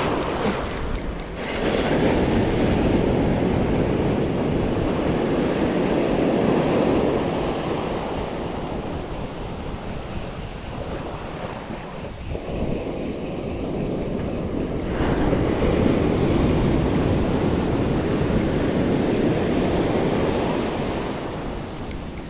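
Wind buffeting the microphone over the sea, a rushing noise that swells and eases, dipping briefly about a second in and again around twelve seconds in.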